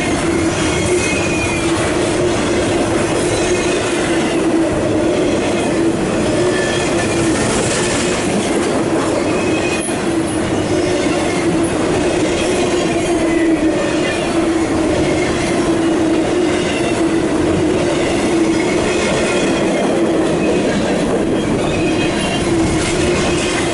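Long CSX intermodal freight train rolling past, its cars running by continuously, with short high-pitched wheel squeals coming and going now and then.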